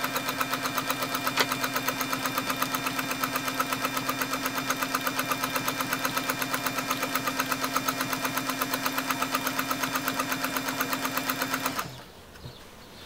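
Bernina 117-K sewing machine stitching at a steady speed: rapid, even needle strokes over the hum of its motor, stopping abruptly near the end.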